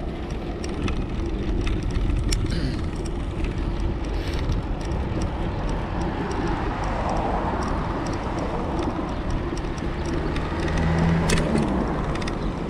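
Wind rushing over the microphone and tyre and road noise from riding a bicycle along a city street, with car traffic going by. Light clicks and rattles come through now and then.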